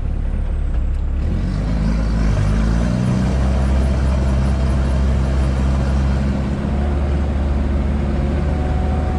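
Sherp ATV's diesel engine running as the vehicle moves off. Its pitch shifts about two to three seconds in, then holds steady.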